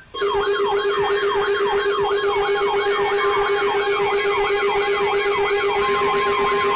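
Electronic siren sound: a quick falling yelp that repeats about three times a second over a steady low tone. It starts abruptly and settles into a steady higher tone near the end.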